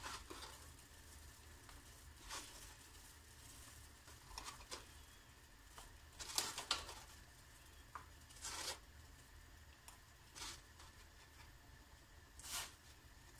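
Frozen gnocchi being picked off a tray and dropped into a pot of boiling water: faint short rustling sounds about every two seconds, the loudest about six and a half seconds in.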